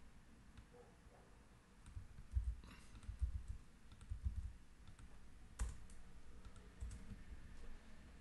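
Typing on a computer keyboard, with key presses and clicks in an uneven run of short taps and dull knocks starting about two seconds in.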